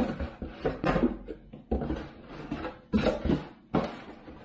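Mud flaps and their cardboard box being handled and rummaged through: an irregular run of knocks, taps and rustles, with about five sharper knocks spread through it.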